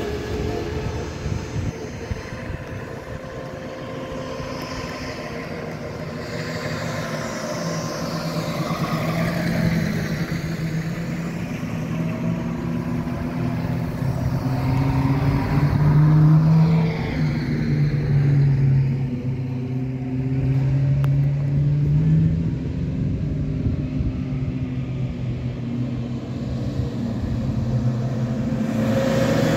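Vintage Bugatti cars driving past one after another, their engines rising and falling in pitch as each goes by. The loudest pass comes about halfway through.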